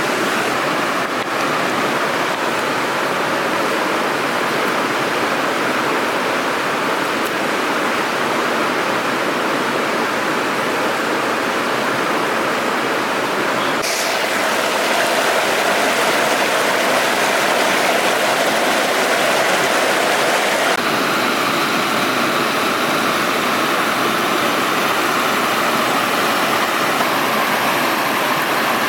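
Rushing water of a gorge river, a steady loud rush whose tone shifts slightly about halfway through and again about two-thirds of the way through.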